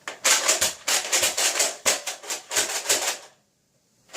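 Quick plastic clicking and clattering of a Nerf Tri-Strike blaster's parts being handled, about four clicks a second, cutting off suddenly about three seconds in.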